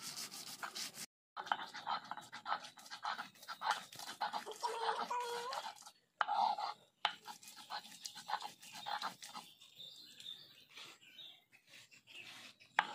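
A stone roller on a sil grinding slab is worked back and forth over soaked khesari (grass pea) dal, crushing the grains. It gives a run of irregular scraping, gritty rubbing strokes, broken off twice briefly.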